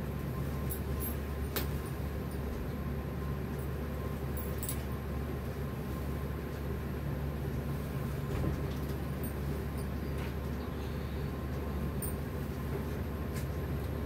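Steady low hum of background room noise, with a few faint clicks scattered through it.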